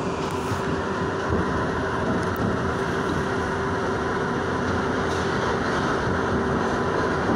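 R62 subway car's steady running hum and rumble, with a constant tone running through it, rising a little in level toward the end.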